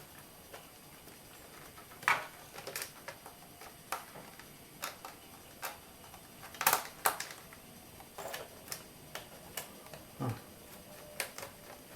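Scattered clicks and knocks of hands and a small screwdriver working on a laptop's plastic case and bottom cover while opening it, at irregular intervals with a small cluster about halfway through.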